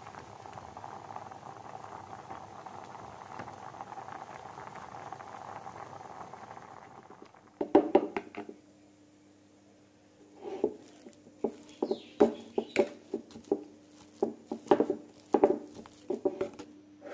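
Pumpkin chunks simmering in a saucepan of boiling water, a steady bubbling hiss that stops about seven seconds in. A few sharp knocks follow as a mesh strainer is handled over a wooden bowl. Then a metal potato masher thumps into cooked pumpkin in the wooden bowl, about a dozen irregular knocks.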